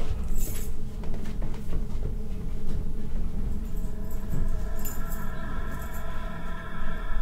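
Low drone of a suspense film score, with held tones that fade and swell back in about four seconds in, and scattered sharp clicks and rustles in the first couple of seconds.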